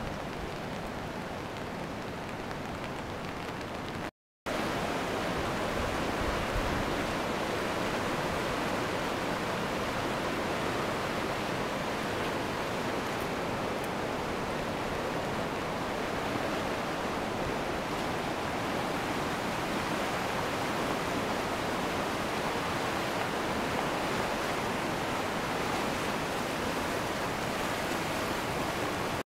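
Swollen, muddy river in spate rushing over stones: a steady, loud roar of fast water. A short break about four seconds in; before it, a quieter steady hiss of a wet street.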